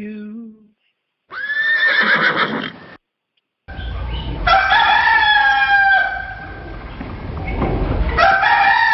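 Rooster crowing three times, each crow a long call that falls away at the end, played as a sound effect.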